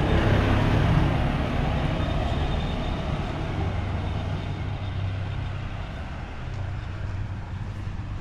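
Motor scooter engine passing close by and fading as it pulls away, leaving a steady low engine hum.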